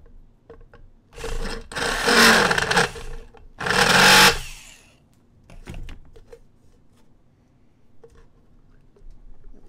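Electric drill running twice as it bores through the end of a plastic bottle: a run of about two seconds, then a shorter one of about a second. Faint clicks of handling follow.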